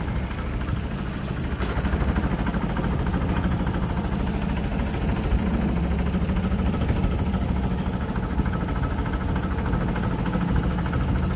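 Engine of a wooden canal tour boat running at an even pitch as the boat moves along, a low hum.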